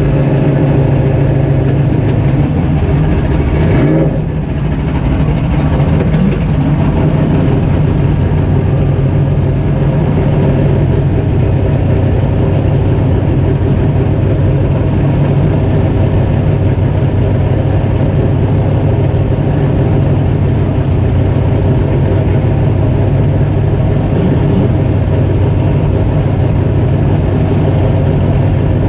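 Super stock race truck's engine heard from inside the cab, running steadily at low revs, with a brief dip about four seconds in.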